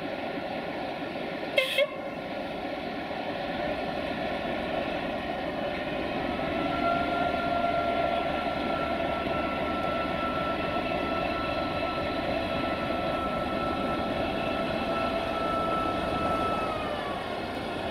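Train at a station: a brief horn blast about two seconds in over steady running noise, then a steady whine that holds from about six seconds and falls away near the end.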